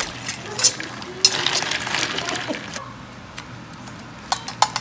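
Live blue crabs and ice cubes knocking and clinking against a metal pot of ice water as a utensil stirs through them: scattered sharp clicks, with a quick cluster of clinks near the end.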